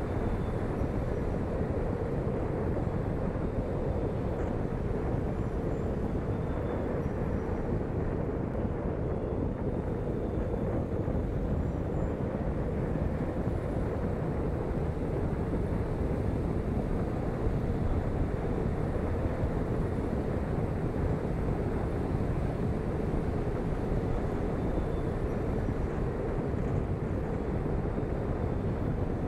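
Steady wind rush and tyre and road noise from a car driving at highway speed, heard through a microphone mounted outside on the car's body.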